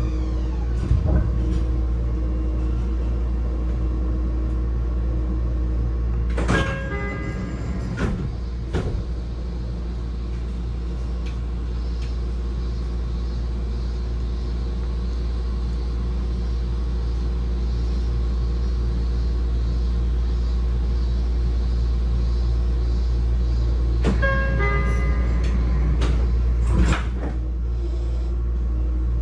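Sotetsu 20000 series train doors chiming and sliding open with a couple of knocks about six to nine seconds in, then chiming again and sliding shut with a thump near the end, over the steady low hum of the stopped electric train.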